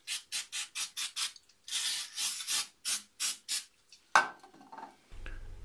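Aerosol can of brake cleaner spraying in a rapid series of short hissing bursts, with one longer burst in the middle, degreasing the mill's base. A single sharp knock comes about four seconds in.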